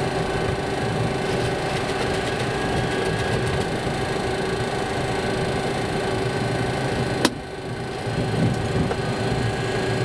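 Steady cockpit hum of an MD-80 taxiing on its Pratt & Whitney JT8D engines at idle. A single sharp click comes about seven seconds in, and the noise dips briefly after it.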